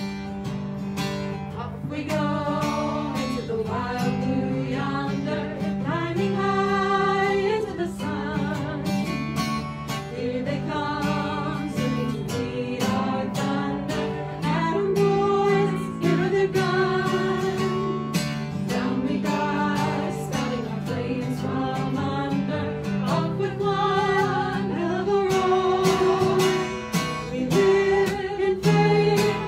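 Live acoustic guitars strummed and picked under a voice singing a slow melody with vibrato.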